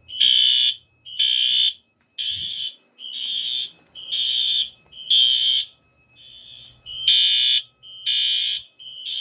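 Several fire alarm horns sounding in short repeated blasts, about one a second, some blasts louder than others.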